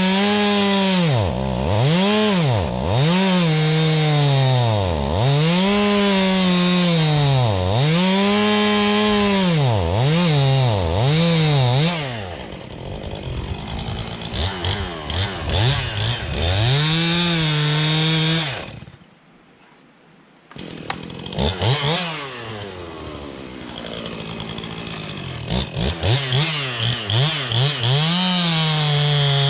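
Two-stroke chainsaw running at high revs and cutting into a tree, its pitch dipping again and again as the chain bites into the wood and climbing back as it frees. About halfway through it goes quieter, drops away almost to nothing for a second or two, then comes back and rises to full revs again.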